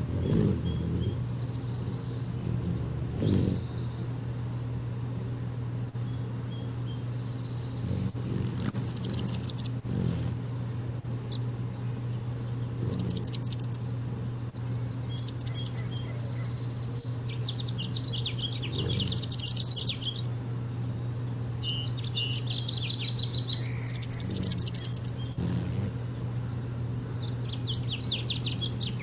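Hummingbirds at a feeder giving sharp, rapid chattering and buzzy trills, about five bursts of around a second each, with shorter chatters between them, over a steady low hum.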